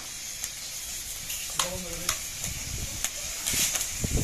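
A fire crackling with sharp pops over a steady hiss as men fight it with fire extinguishers. A voice calls out briefly about one and a half seconds in, and a low rumble rises near the end.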